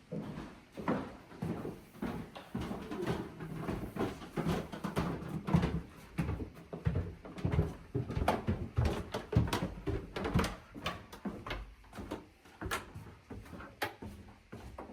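Irregular knocks, thumps and scrapes of heavy objects being handled and shifted, a few sharp knocks louder than the rest.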